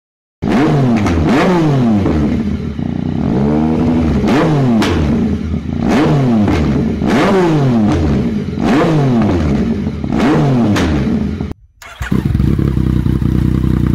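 Yamaha MT-09 (FZ-09) inline three-cylinder engine through a Black Widow aftermarket exhaust, revved with repeated sharp throttle blips, each one rising and falling straight back to idle. Near the end it cuts to a second MT-09 with a Black Widow exhaust, idling steadily.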